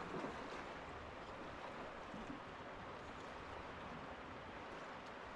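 Steady rush of a large river's flowing water.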